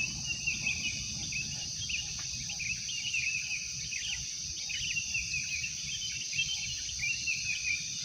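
Tropical forest ambience at dawn: a steady high drone of insects with many short, quick bird chirps and calls scattered throughout.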